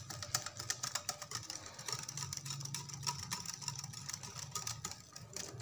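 Wire whisk beating a thin coconut cake batter in a glass bowl, its tines clicking rapidly against the glass, over a low steady hum.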